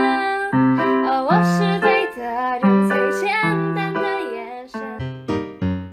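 Background music led by keyboard, with long held notes. About five seconds in, it changes to short notes at an even beat, about three a second.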